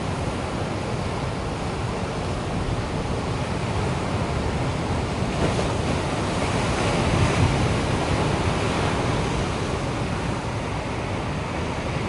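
Ocean surf breaking and washing, with wind buffeting the microphone; the wash swells a little about seven seconds in.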